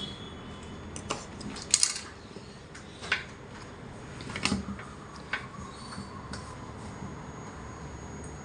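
A handful of light, irregular clicks and taps from handling a phone box and its packaging, with a sharper double click about two seconds in.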